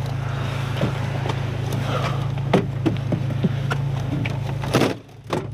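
Jeep Wrangler engine idling steadily, with scattered clicks and knocks as the driver settles into the seat, and one louder thud near the end.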